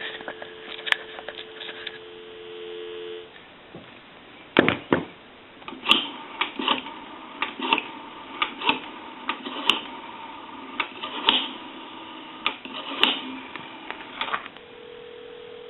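Telephone dial tone heard through a Western Electric single-slot rotary payphone, stopping after about three seconds; then a sharp clack and a run of irregular clicks as a number is dialled on the rotary dial. Near the end a steady ringback tone begins.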